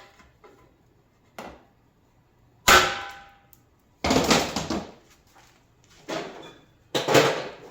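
Hammer blows on a 1.5 inch chisel driving plastic cord strain reliefs out of a coffee warmer's metal housing. There are a couple of light taps, then four hard strikes; the first and loudest rings briefly.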